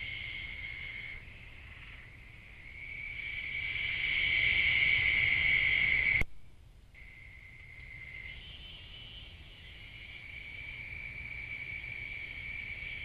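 Steady, high-pitched chorus of night insects, crickets or katydids. It swells to its loudest in the middle, breaks off abruptly about six seconds in, then resumes more faintly.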